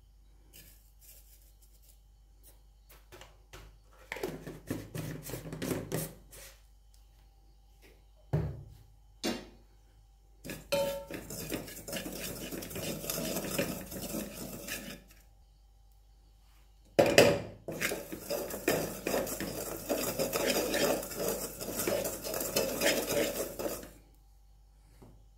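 Wooden spoon stirring and scraping dry chilli powder around the bottom of an aluminium pot, in three spells of a few seconds each. Sharp knocks of the spoon against the pot come about eight seconds in and again as the last spell starts, the loudest sound here.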